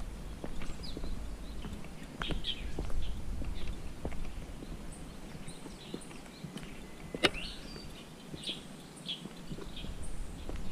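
Small birds chirping with many short, high calls, over a few irregular footsteps on a paved path. One sharp tap about seven seconds in is the loudest sound.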